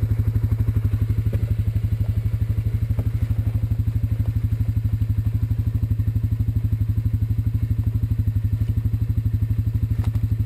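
ATV engine idling steadily close by, an even pulse of about ten beats a second, with a few light knocks from the tow rope being handled.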